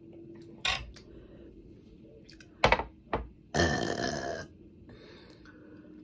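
A woman burping after gulping lemonade: a couple of short sharp sounds, then one long burp of about a second a little past halfway through.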